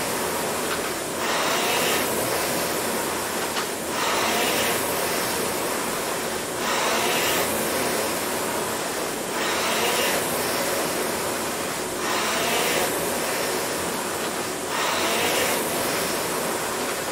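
Air-resistance rowing machine's flywheel fan whooshing, swelling with each drive stroke and easing on each recovery, about every 2.7 seconds: a steady pace of 22 strokes per minute.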